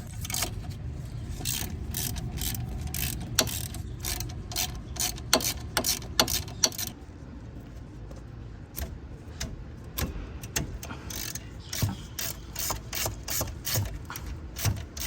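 Hand socket ratchet clicking in irregular runs as it turns bolts on the brake caliper assembly, with a short lull about seven seconds in.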